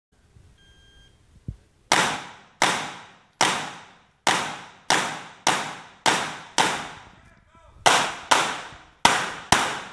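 An electronic shot-timer start beep, then twelve pistol shots at a quick, uneven pace, with a pause of about a second after the eighth. Each shot rings out with a long echo in the indoor range.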